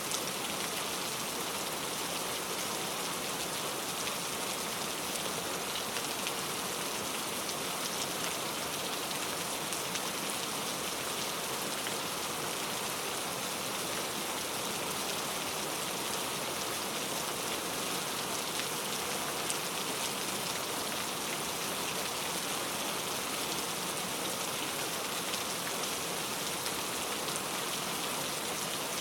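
Steady rain falling: an even hiss with a fine patter of drops, holding at one level throughout.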